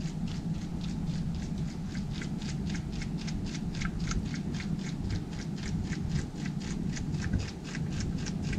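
Homemade pop-pop steam boat running on water: a milk-carton hull with an aluminium drink-can boiler heated by candles. It gives off a rapid, even 'pon-pon' ticking of about six pops a second as the boiler pulses steam.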